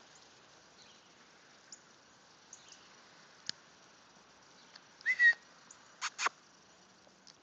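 A person whistling briefly about five seconds in, a short clear note, followed by two quick sharp sounds close together; otherwise quiet.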